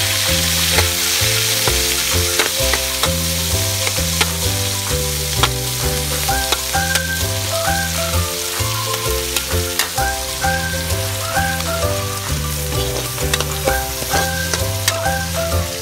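Sliced tomatoes and sautéed aromatics sizzling in hot oil in a wok, with a metal spatula clicking and scraping against the pan as it stirs. Background music with a bass line and melody plays throughout.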